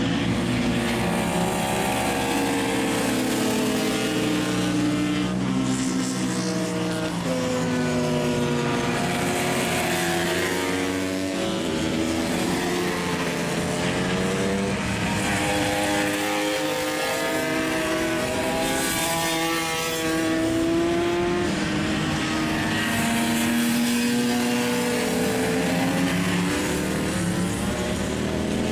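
Several racing motorcycle engines running hard as the bikes pass in a group, their notes overlapping and stepping up and down in pitch as they rev, shift gears and brake into a corner.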